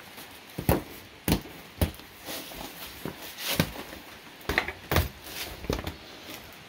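A series of about eight irregular, sharp knocks and clicks, like footsteps and handling noise.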